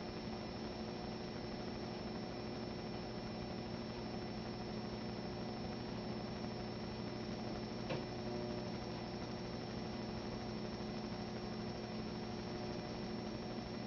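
Steady electrical mains hum with a faint high steady whine above it, and a single short click about eight seconds in.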